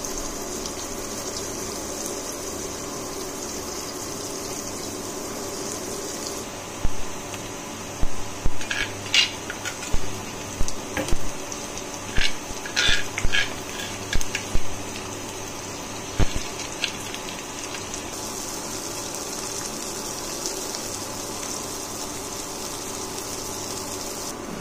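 Sliced onions sizzling steadily in hot oil in a non-stick pan. From about 7 to 17 seconds in, about a dozen sharp knocks and scrapes of a utensil against the pan come in uneven bunches as a green spice paste is added and stirred in.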